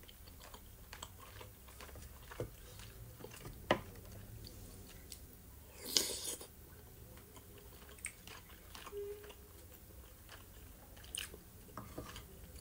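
Close-up chewing of soft boiled dumplings, with small wet mouth clicks and a louder bite off a spoon about six seconds in.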